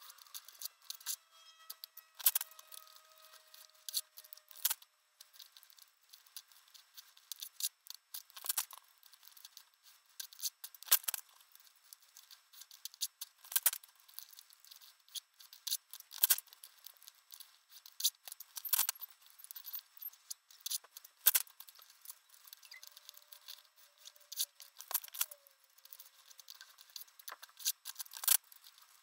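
Paper sheets being torn out of a spiral-bound notebook and their side strips ripped off: irregular crisp tearing, crackling and rustling of paper.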